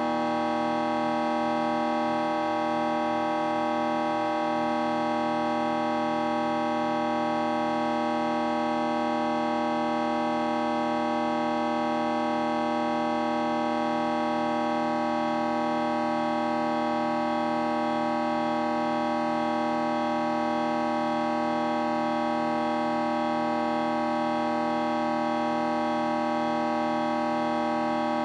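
Vocoder-processed electronic sound effect holding a steady, dense chord of many unchanging tones.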